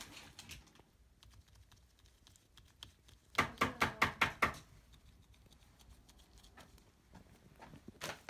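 A gloved hand slapping a round rubbery surface: about eight quick, sharp slaps in just over a second, midway through, with only faint room tone around them.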